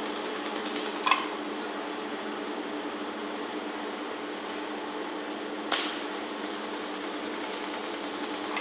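Laser mould repair welding machine running with a steady hum and a faint, fast, regular ticking. Two sharp clicks come, about a second in and near six seconds.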